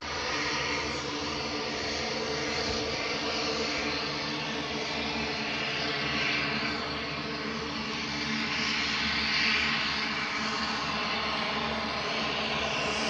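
Twin Garrett TPE331 turboprop engines of a Dornier 228 running at low taxi power, with the propellers turning: a steady engine sound made of several held tones over a broad rush.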